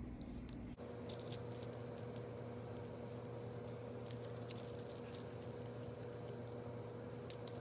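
Small jewel box seashells clicking and clinking against each other as they are handled and dropped in as top dressing around a potted succulent: a scatter of light, sharp clicks at an irregular pace.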